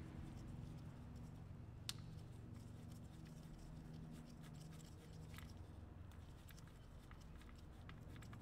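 Quiet handling sounds of hands working at the underside of a transmission: a few faint scattered clicks and one sharper click about two seconds in, over a steady low hum.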